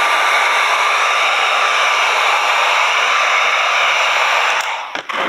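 Electric heat gun running steadily, its fan blowing hot air with a faint thin whine, heating vinyl wrap film to soften it. It cuts off about four and a half seconds in, followed by a couple of clicks.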